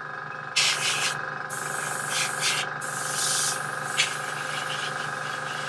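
Airbrush spraying paint in four short bursts of hiss, one after another over the first four seconds, over a steady mechanical hum.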